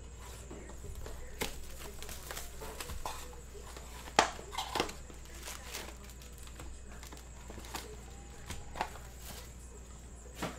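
Plastic shrink wrap torn and crinkled off a cardboard trading-card hobby box, then the box opened and foil card packs handled. Irregular rustles and clicks, the sharpest about four seconds in.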